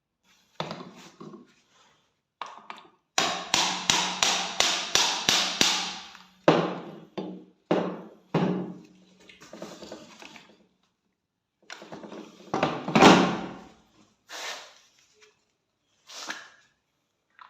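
Hard taps and knocks while an old rusty rifle is worked on: a quick run of about eight taps, roughly three a second, a few seconds in, then single knocks spaced out, the loudest about two thirds of the way through.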